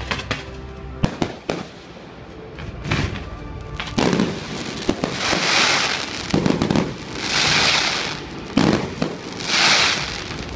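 Fireworks display: a few sharp bangs in the first seconds, then swells of crackling hiss about every two seconds as volleys of comets and sparks go up.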